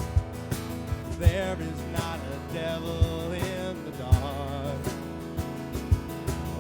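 Live church worship band playing an instrumental passage between sung lines: sustained chords with a wavering melody line over them, and a drum kit's kick drum hitting about every second or so.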